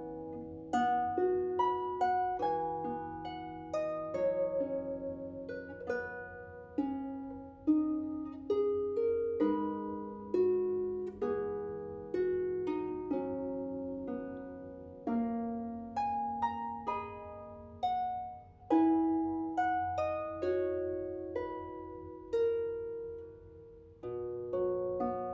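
Solo harp played slowly, single plucked notes and broken chords ringing on and decaying into one another.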